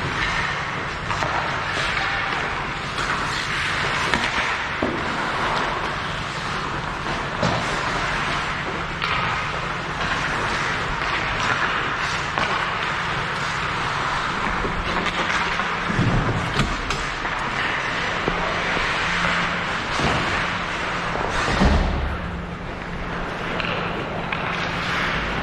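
Ice hockey game noise in a rink: skate blades scraping across the ice with scattered knocks and thuds of sticks, puck and boards, one heavier thud about twenty-two seconds in.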